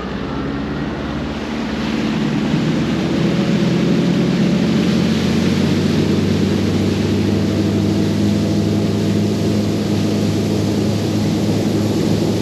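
Boat motor running under way, its steady hum growing over the first few seconds and then holding, with a rush of wind and water over it.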